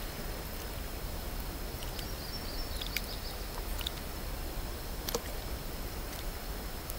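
Insects droning with one steady, high-pitched tone over a rural outdoor hush. A few faint sharp clicks come about three, four and five seconds in.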